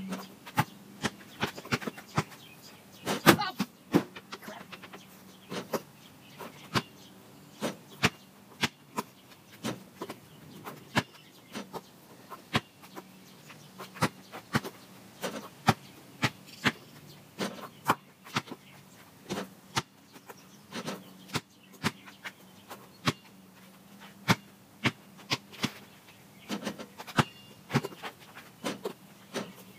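A basketball bouncing on pavement and striking the backboard and rim: a rapid, irregular series of sharp knocks, one or two a second, over a faint steady hum.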